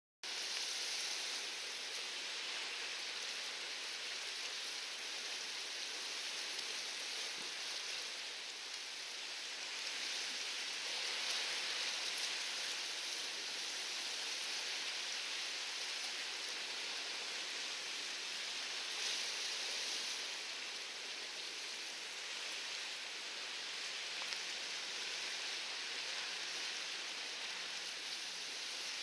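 Steady hiss of light rain falling, even and unbroken with no distinct drops or engine note.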